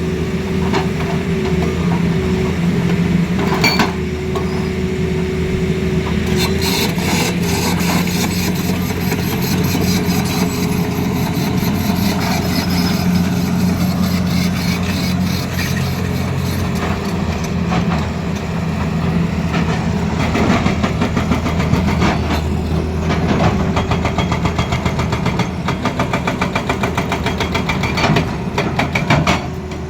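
Tata Hitachi Zaxis excavator's diesel engine running steadily, with stretches of rapid, sharp knocking over it, especially in the second half.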